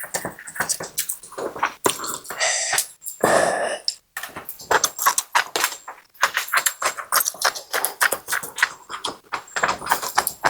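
Close-miked eating sounds from beef noodle soup: a quick run of wet chewing clicks, with two longer slurps between about two and four seconds in.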